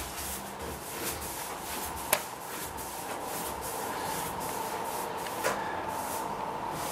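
Paintbrush bristles rubbing across a wooden door in repeated soft strokes, with a sharp click about two seconds in.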